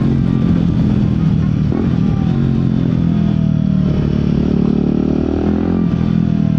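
Royal Enfield Guerrilla 450's single-cylinder engine and exhaust running while riding, its note stepping to a new pitch a few times.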